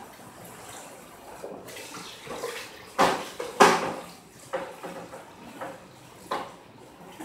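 Dishes being washed by hand under a running tap, with a string of sharp clatters of dishes and pans knocking together; the two loudest come about three seconds in.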